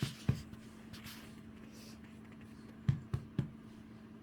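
Several sharp knocks, two near the start and three in quick succession about three seconds in, over a steady low hum.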